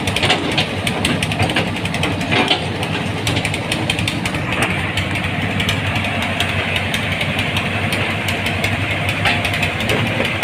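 Diesel engine of a Hitachi Zaxis 210F-5G hydraulic excavator running steadily, with a fast ticking clatter and a few sharper knocks in the first half.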